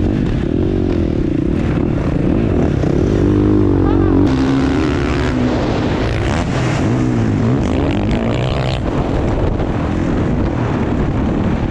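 Dirt bike engine running and revving, its pitch rising and falling again and again.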